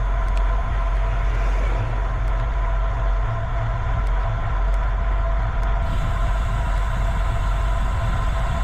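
Steady ride noise: a heavy low rumble with a constant hum over it, as from wind on the microphone and tyres rolling on the road.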